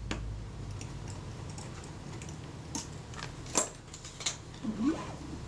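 A handful of small sharp clicks and taps from fingers and tools handling small metal parts on a Kodak Retina IIIc camera's top plate while its exposure meter is being screwed back on, with a short squeak near the end.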